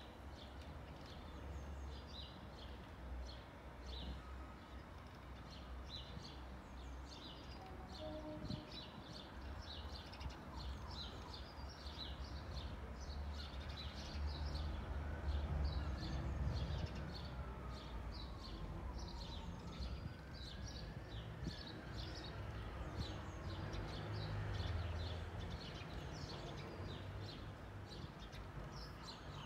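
Small garden birds chirping constantly over a low, uneven rumble that swells about halfway through. Two faint tones rise and fall in pitch in the middle.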